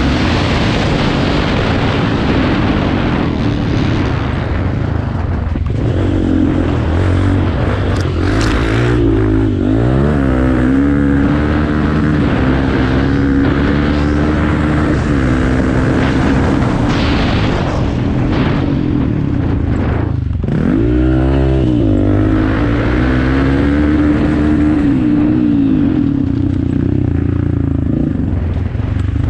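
Off-road racing motorcycle engine running hard, its pitch climbing and dropping again and again with throttle and gear changes. The revs fall sharply and climb back about 10 and 20 seconds in.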